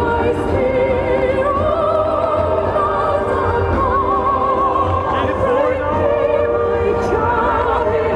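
Operatic singing with an orchestra: a voice holding long notes with a wide vibrato over sustained strings.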